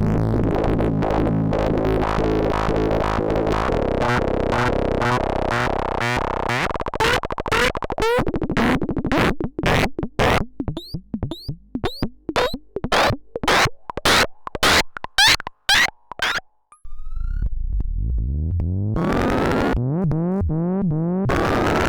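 Bastl Instruments SoftPop analog synthesizer, with its two analog oscillators, playing experimental patches. A dense buzzing drone breaks up about six seconds in into a stuttering train of clicks and short pulses that thin out to near silence. A low tone then returns and builds into a repeating pattern of rising sweeps.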